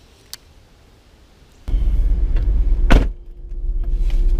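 A vehicle's engine idling, heard inside the cab as a steady low rumble with a steady hum over it, starting abruptly about a second and a half in. There is a single loud knock about three seconds in.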